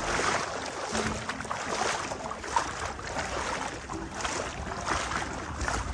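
Shallow seawater splashing and sloshing around people wading and swimming, a ragged noisy wash with frequent small splashes.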